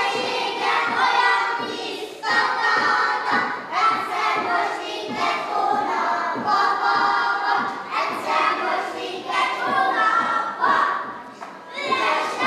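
A group of young children singing a song together, with thuds of feet on the wooden stage as they move.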